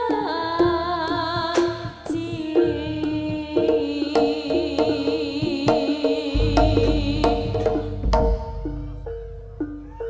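Jaranan gamelan music: kendang hand drums and struck gamelan metal keys play a busy rhythmic pattern under a high, wavering melody line. Heavy low drum beats come in about six seconds in.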